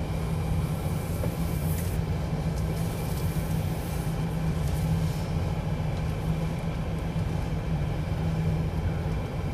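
Steady low hum inside the cabin of a Rolls-Royce Ghost rolling slowly, with a few faint clicks.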